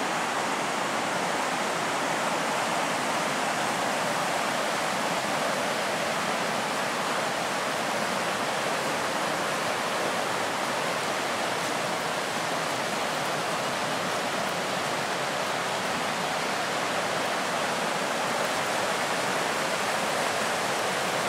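Mountain river in spate rushing through whitewater rapids over rocks, a steady rush of water, swollen by heavy recent rain.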